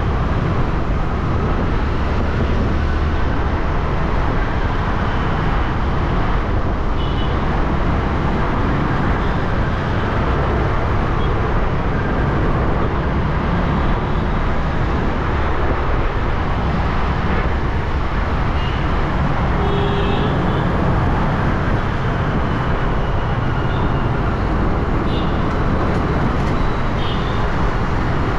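Steady road noise of a motor scooter riding through busy city traffic: its small engine, tyres and surrounding vehicles blend into one continuous sound, with wind on the microphone. A few brief higher-pitched sounds from the traffic come through now and then.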